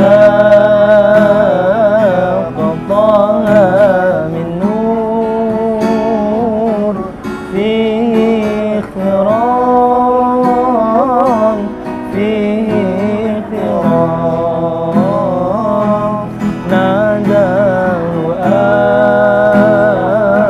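Singing with acoustic guitar accompaniment: a melody in drawn-out phrases of a few seconds, the held notes wavering, over steadily strummed chords.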